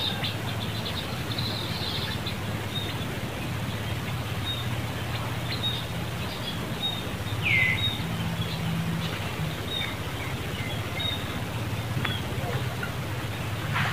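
Outdoor ambience: a steady low hum and noise bed with faint, scattered high bird chirps. About seven and a half seconds in, one short high call falls in pitch; it is the loudest sound.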